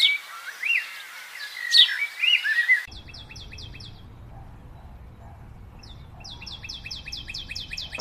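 Songbird singing: a warbling phrase of high sliding notes, then, after a sudden change of recording, two quick runs of rapid repeated high chirps, about six a second.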